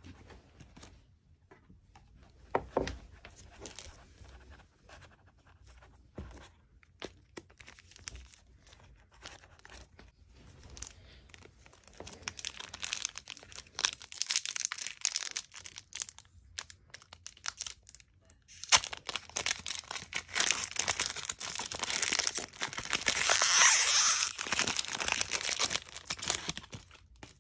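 Foil Pokémon Astral Radiance booster pack being handled, crinkled and torn open by hand. A few light handling noises come first, then the wrapper crinkles and tears in two long stretches. The second stretch is the louder one, peaking near the end as the pack is pulled open.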